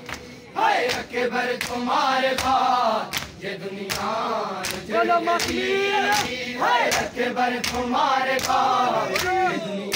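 Men's voices chanting a Muharram noha (lament), with regular sharp slaps of hands striking bare chests (matam) in time with the chant.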